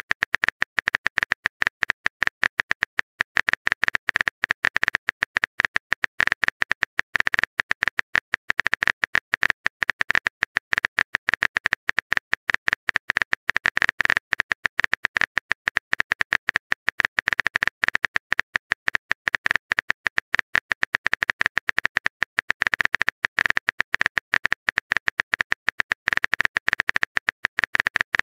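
Phone keyboard typing sound effect: a rapid, steady stream of short clicks as a message is typed out.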